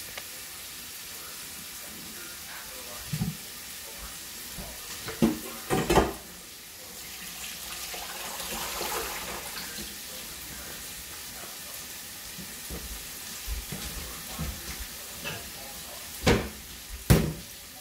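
Steady hiss of food cooking on the stovetop, a pot boiling and a pan of beef frying, swelling for a few seconds midway. Several knocks and clatters break in, the loudest about six seconds in and again near the end.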